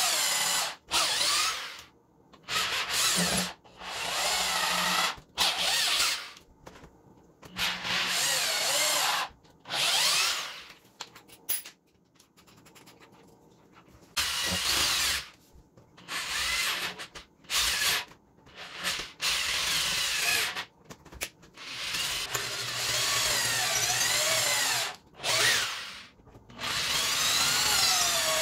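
Corded electric drill boring into old wood, run in many short bursts of one to three seconds as the trigger is squeezed and let go, the motor whine rising and falling in pitch. There is a pause of about three seconds near the middle.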